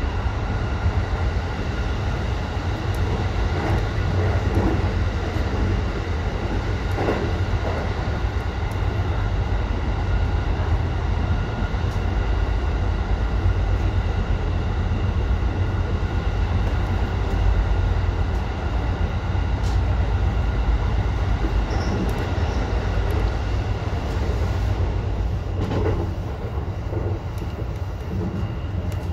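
Electric commuter train running through a tunnel, heard from the driver's cab: a steady, heavy rumble of wheels and running gear on the rails, with a few faint steady tones above it. The level eases a little in the last few seconds as the train comes out of the tunnel into the open.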